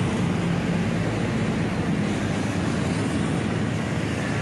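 Steady city road traffic: motorcycles and cars passing on a busy street.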